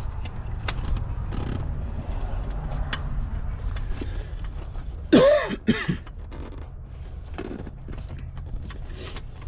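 A short cough-like vocal sound from a person about five seconds in, over a steady low rumble with scattered light clicks and knocks.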